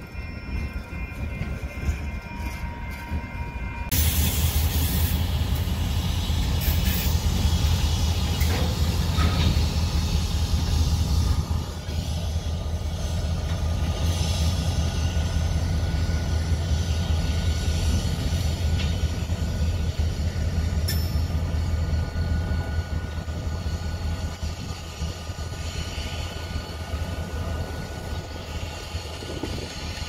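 Freight cars rolling past for the first few seconds, with faint steady squealing tones. After a cut about four seconds in, Union Pacific diesel locomotives run slowly with a steady low engine rumble as they move lumber flatcars.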